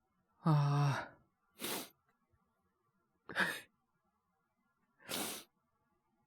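A man crying: a short voiced sob, then three short breathy sniffs or breaths spaced about a second and a half apart.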